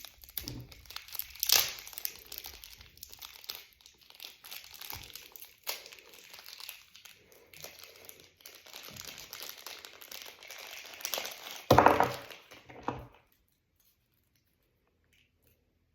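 Packaging crinkling and tearing as it is opened by hand, a dense crackle with a few louder rips about twelve seconds in; it stops about thirteen seconds in.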